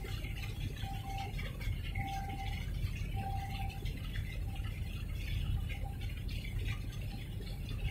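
Night-time container-port waterfront ambience: a steady low rumble with irregular small splashing and rattling, and a faint beeping tone about once a second, clearest in the first few seconds.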